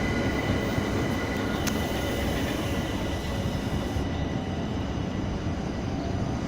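Train running past on the tracks: a steady rumble with faint high steady whining tones, and one sharp click just under two seconds in.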